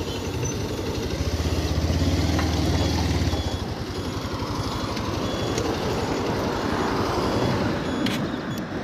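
Motorcycle engine running at low speed as the bike rolls along the roadside, with road and traffic noise around it. The bike eases to a stop near the end.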